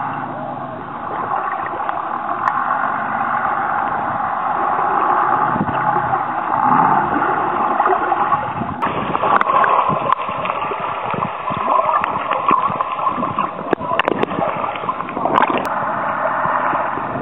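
Muffled rushing and gurgling of water around a camera held underwater, with many short clicks and knocks in the second half.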